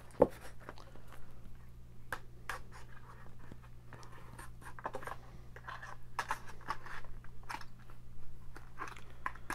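A hobby knife blade scraping and scoring along the plastic blister and cardboard backing of a toy-car blister pack, cutting it open. It comes as short, irregular scratches and small plastic clicks, with one sharp click right at the start.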